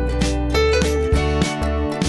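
Upbeat background music with plucked guitar, a steady bass and a regular beat.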